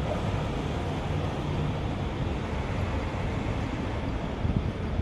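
A small boat's motor running steadily with a low rumble.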